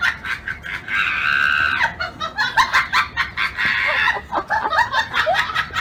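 A man screaming in high-pitched, rapid, broken cries.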